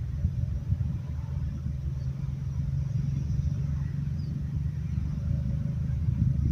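Low, steady engine rumble, such as a motor vehicle running nearby.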